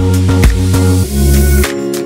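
Background electronic music: drum hits over a deep bass line, with a rising swoosh that cuts off about three-quarters of the way through.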